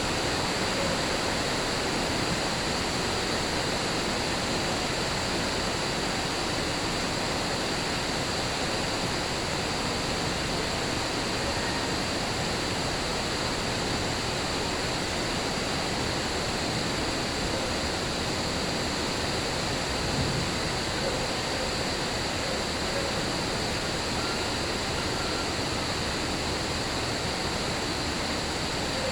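Steady rain hiss with a continuous high-pitched cricket trill over it.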